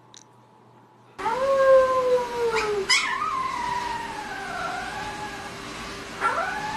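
Husky puppy howling: long high-pitched, wavering howls that slide down in pitch, starting about a second in, with a fresh rising howl near the end.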